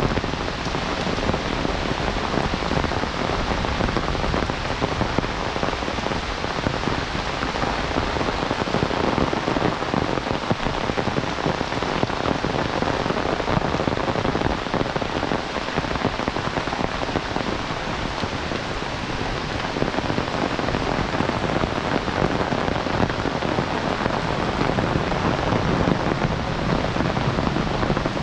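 Heavy rain falling steadily, a dense, even hiss of rain on surfaces.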